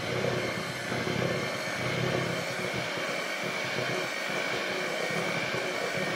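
Moulinex electric hand mixer running steadily at one speed, a constant high-pitched motor whine over the churning of its beaters in thick cake batter.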